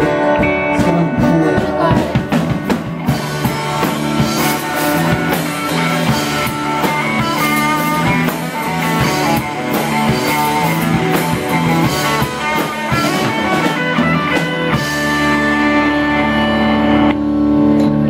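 Live rock band playing an instrumental passage with electric guitars, bass, acoustic guitar and drum kit. About fifteen seconds in, the drums stop and a held chord rings on.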